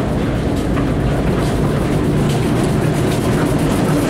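A standing railway locomotive running close by: a steady low rumble with faint ticks over it.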